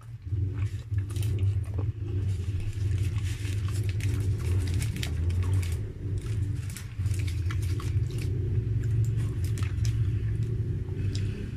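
Close-up chewing of a cheeseburger, with wet mouth clicks and small crackles, over a loud steady low rumble that sets in just after the start.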